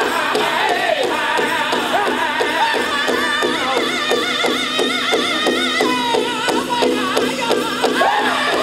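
Powwow drum group singing a chicken dance contest song: several men singing high, wavering lines over a fast, steady unison beat on a big powwow drum.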